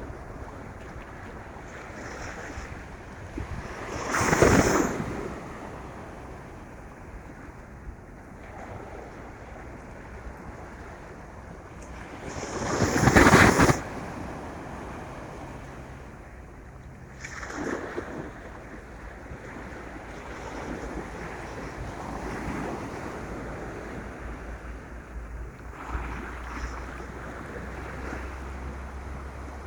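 Atlantic surf breaking on the beach over steady wind, with wind buffeting the microphone. Two loud surges, the first about four seconds in and the second near the middle, build up and cut off. Smaller swells follow in the second half.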